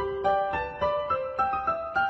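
Background music: a keyboard melody of single notes, about three or four a second.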